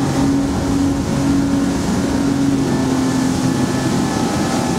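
Twin Yamaha 250 outboard motors running at steady cruising speed with the boat on plane. The engines drone at an unchanging pitch under a rush of wind and water.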